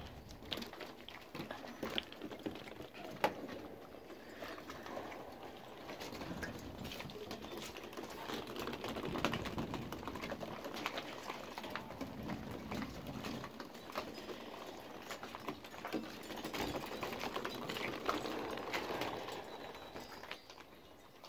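Pomsky puppies scampering and playing on a wooden deck: paws pattering, with many scattered light clicks and taps of small plastic play balls being knocked about.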